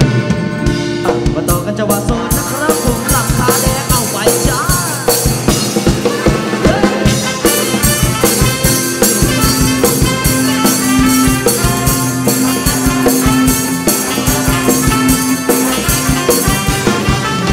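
A live band playing a Thai ramwong dance song in an instrumental passage, with a steady drum beat under sustained melody notes, heard through the stage mixer.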